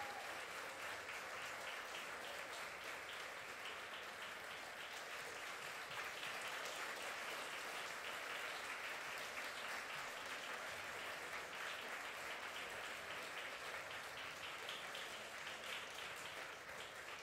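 Concert hall audience applauding steadily: dense, even clapping that eases a little near the end.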